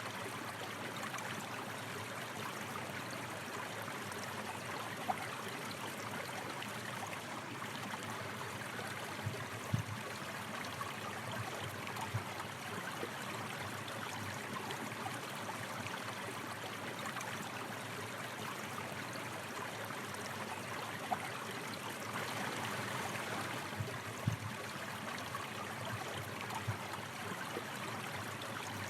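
Water running steadily in a stream, a continuous rushing wash with a handful of brief louder splashes standing out now and then.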